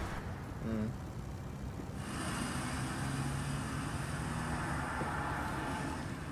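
A motor vehicle running steadily, heard as a low hum under a steady noise that turns brighter and hissier about two seconds in.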